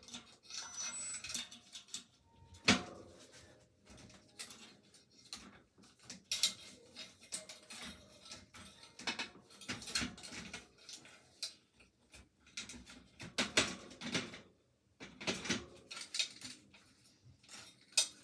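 Metallic clicks and clanks of a fixed-gear bicycle's rear wheel and chain being handled as the wheel is fitted back into the frame, with a sharp knock about three seconds in.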